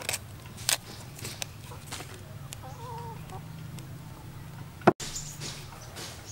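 Knife and fingers peeling cassava roots: short scratchy strokes as the rind and skin are pulled and scraped off. A short wavering call sounds around the middle, and a sharp click about five seconds in is the loudest sound.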